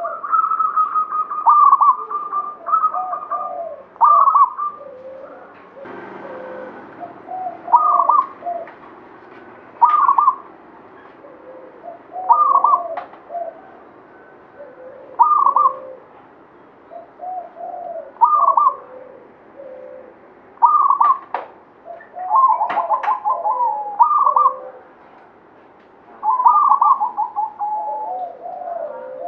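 Zebra dove (local Javanese perkutut) singing its cooing song: a phrase every two to three seconds, each opening on a higher note and dropping into quicker, lower coos, with a few longer rolling trills near the start and end. A few light clicks fall between phrases.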